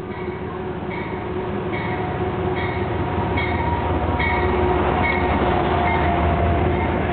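Amtrak Genesis P32AC-DM locomotive's bell ringing, a ding about every 0.8 s that stops about six seconds in, over the rumble of the passing train, which grows louder over the first few seconds as it approaches.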